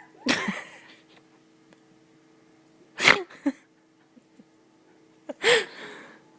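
A 5½-month-old baby's cough-laughs: three short, sharp bursts about two and a half seconds apart.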